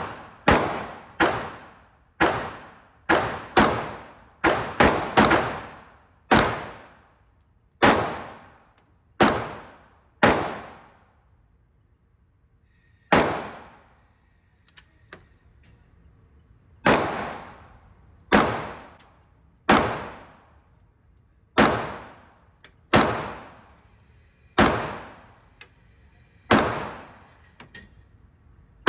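Full-size semi-automatic pistol fired about twenty times on an indoor range, each shot a sharp crack with a short echoing tail. A quick string comes first, the shots about half a second to a second apart. After a pause of about three seconds a third of the way in, slower single shots follow roughly every one and a half to two seconds.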